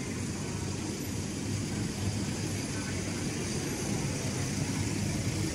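Steady low rumble of city street traffic, engines of passing vehicles running with no single standout event.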